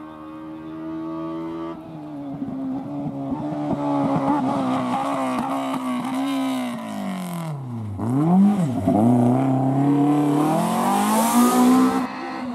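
BMW E30 rally car's engine under hard driving: it pulls steadily and climbs in pitch, drops steeply twice around eight seconds in, then revs rise again as it accelerates away.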